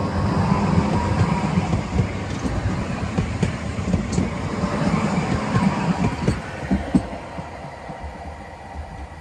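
Articulated tram passing at close range: its drive hums steadily while the steel wheels rumble and knock on the rails. It fades over the last couple of seconds as it moves away.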